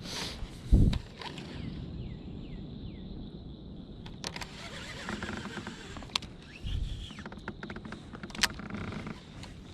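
Handling noise aboard a kayak while fishing: a heavy low thump about a second in and another near seven seconds, with scattered sharp clicks and rustling in between.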